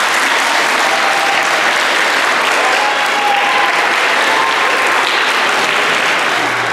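An audience applauding, dense and steady, easing off a little near the end.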